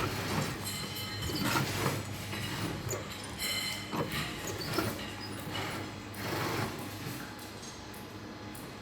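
Sewing machine running, with its steady motor hum and irregular clicks and rustles as it stitches synthetic hair. The hum stops about seven seconds in.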